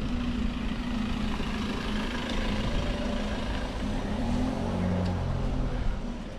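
A motorhome's engine running as the van drives slowly past close by, loudest about four to five seconds in. Underneath is a steady low rumble.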